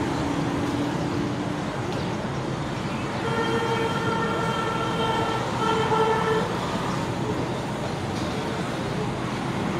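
Steady background traffic noise, with a vehicle horn sounding one long flat note about three seconds in and a shorter one right after it.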